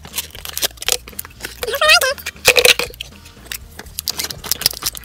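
Light clicking and rustling as a small cardboard toy box, a paper leaflet and plastic wrapping are handled on a wooden table, with a child's short wordless sing-song voice about two seconds in.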